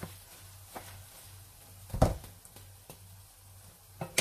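Wooden spatula knocking against a nonstick pan while stirring thick sticky rice: a few separate knocks, the loudest about halfway through and two close together near the end, over a low steady hum.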